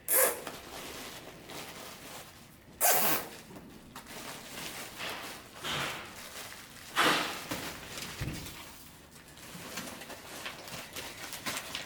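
Flexible HVAC duct being handled and joined: rustling and crinkling of the duct, with several short, louder rasps.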